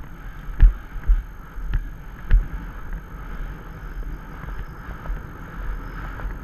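Horse's hooves thudding on a sandy track in a steady stride rhythm, a little under two beats a second, clearer in the first half. Wind rushes over the microphone throughout.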